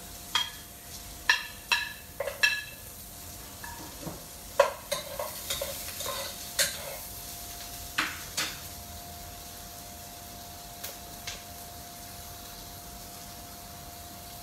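A spatula clinking and scraping against a plate and a stainless steel pot: a dozen or so sharp, ringing knocks in the first nine seconds, then two faint ticks. Under them, shallots, garlic and ginger sautéing in oil give a faint sizzle, and a steady faint hum runs throughout.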